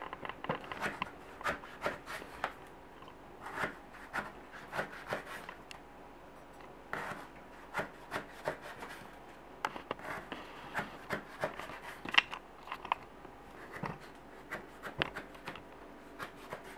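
Kitchen knife slicing lengthwise through a whole eggplant on a plastic cutting board: irregular short cuts and scrapes, with the blade now and then knocking against the board.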